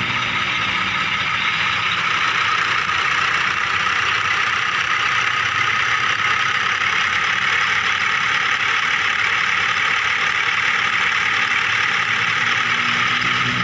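Small electric motors and gears of a remote-control toy vehicle running steadily.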